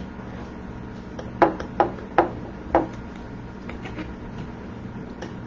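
Knife and fork clinking and tapping against a plate while cutting a sandwich: a short run of about four sharp clicks about a second and a half in, then fainter ticks.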